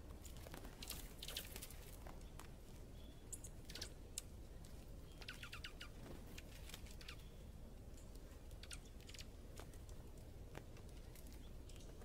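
Small birds at a hanging seed feeder: scattered faint chirps and sharp ticking clicks, with a quick run of ticks about five seconds in, over a low steady background rumble.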